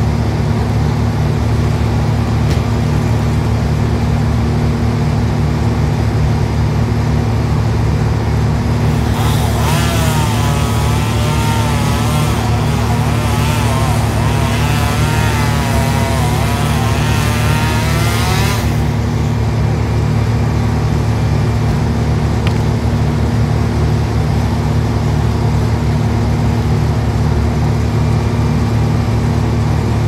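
A steady engine drone throughout. A chainsaw's higher, wavering whine rides over it for about ten seconds in the middle, as the saw revs and cuts at the top of a trunk.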